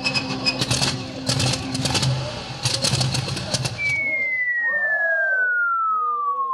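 Stage sound effects of a propeller aeroplane: a clattering, sputtering engine noise over a few low musical notes that cuts off about four seconds in, then a single long whistle falling steadily in pitch, as of a plane going down.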